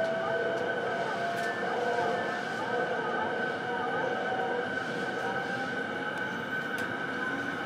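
JR East E233-series electric train running, heard from inside a car. Steady running noise comes with the traction motors' whine, which rises slowly in pitch as the train picks up speed.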